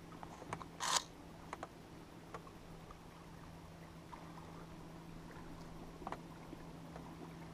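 Faint, scattered clicks and knocks of a smallmouth bass being handled in a kayak, with one brief rustling burst about a second in, over a steady low hum.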